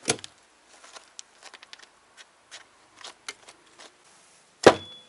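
Hatchet blows into a frozen cow's head. A sharp chop comes at the start, light clicks and knocks of handling follow, and near the end one hard, loud chop is followed by a short ring.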